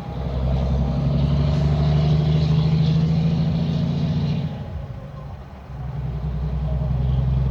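Loaded log truck's diesel engine pulling away under load with a steady low drone; it eases off about five seconds in, as at a gear change, then builds again.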